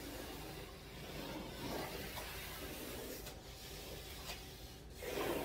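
Hands rubbing and sliding over the sides and top of a corrugated cardboard shipping box, a continuous scraping of skin on cardboard, with a couple of light taps partway through.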